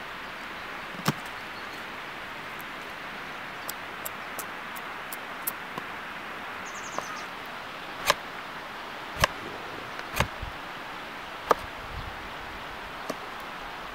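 Sharp knocks and cracks of a fixed-blade knife being struck through a short stick on a tree stump, splitting it lengthwise into a sap spout: one knock about a second in, then four in quick succession in the second half, with fainter ticks between. A steady outdoor hiss lies underneath.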